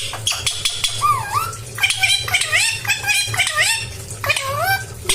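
Indian ringneck parrot chattering to itself in a run of short, curving whistled calls, mumbling as a talking parrot does.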